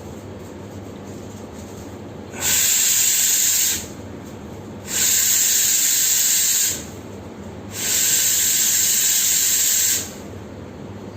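Coffee machine's steam wand letting out steam in three steady, hissing bursts of one to two seconds each, with short pauses between.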